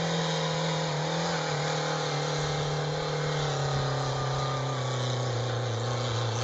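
Homemade off-road buggy's 1600 cc turbocharged engine running under steady throttle, its pitch easing slowly down in the second half.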